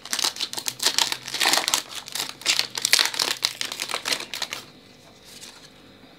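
A Pokémon booster pack's foil wrapper crinkling in rapid, dense crackles as it is torn open by hand. The crinkling dies down about four and a half seconds in, leaving only a few faint rustles.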